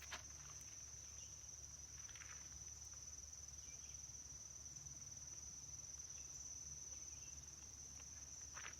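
Insects chirring in a steady, high-pitched drone, with a few faint steps or rustles.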